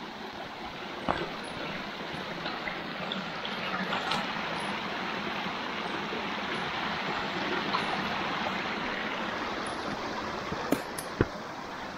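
Creek water running and splashing over rock ledges: a steady rush of water. A few faint knocks sound near the end.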